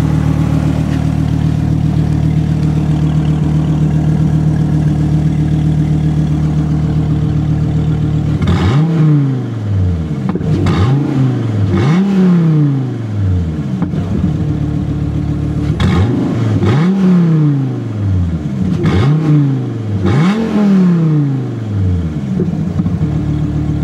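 2014 SRT Viper GTS's 8.4-litre V10 idling with a steady drone, then, about a third of the way in, blipped in several quick free revs that each rise sharply and fall back to idle, heard from inside the cabin.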